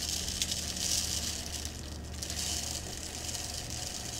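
Dry uncooked rice trickling from a cup into a plastic blender cup, a faint grainy hiss over a low steady hum.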